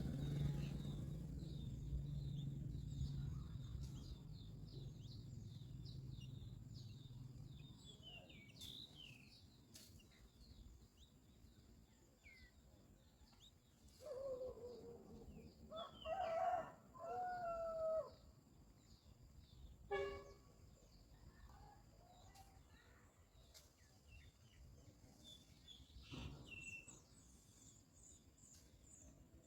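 Outdoor birdsong: small birds chirping high and thin throughout, with a louder, lower drawn-out call from a larger bird about halfway through. A low steady hum runs under the first several seconds and fades out.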